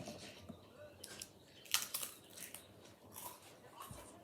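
Crisps being chewed close to the microphone: a few short, crisp crunches and mouth clicks.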